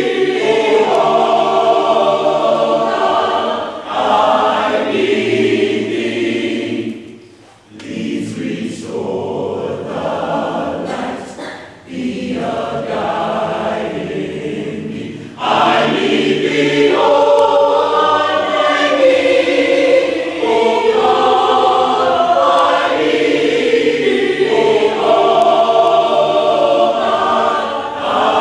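Choir singing a sustained choral passage. It pauses briefly about a third of the way in, continues more softly, then swells back to full voice a little past halfway.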